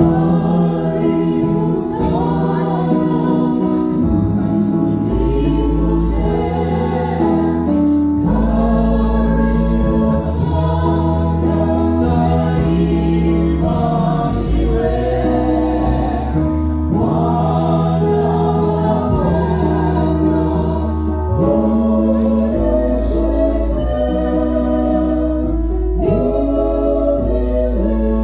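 Mixed male and female vocal ensemble singing a slow gospel hymn in harmony into microphones. The phrases are held for a few seconds each under a sustained low bass part.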